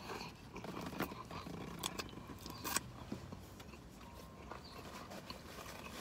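A person chewing a large mouthful of toasted sandwich close to the microphone, with scattered wet mouth clicks and crunches of thick buttered toast.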